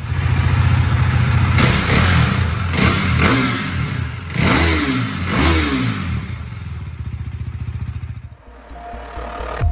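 KTM 390 Duke's single-cylinder engine idling through its standard exhaust and blipped about five times, each rev rising and falling back to idle; it cuts off about eight seconds in.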